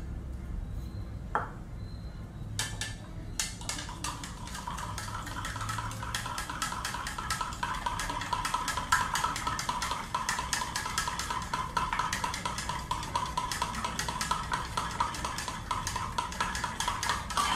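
Metal spoon stirring dried yeast into water in a plastic measuring jug, clinking quickly against the sides at about four or five clicks a second, with a light ringing. A few separate clinks come first, before the steady stirring starts.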